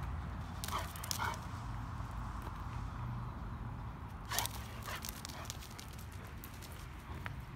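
A Rottweiler giving a few short barks, the loudest about halfway through, over a steady low hum.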